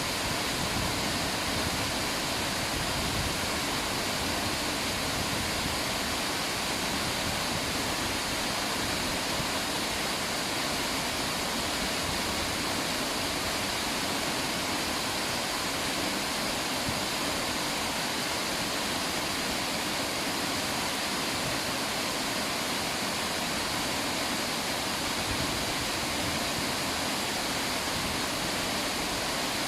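River water rushing and splashing steadily, a continuous, even hiss with no change.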